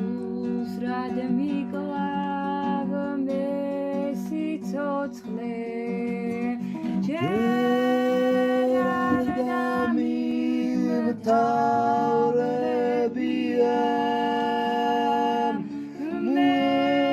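Georgian folk song: singing with long held notes over a plucked string accompaniment.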